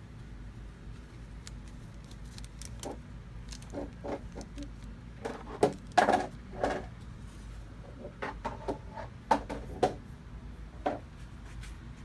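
Thin clear plastic packaging being handled: plastic bags and a clear clamshell tray crinkling and clicking in irregular bursts, loudest around the middle and again in the second half, over a low steady hum.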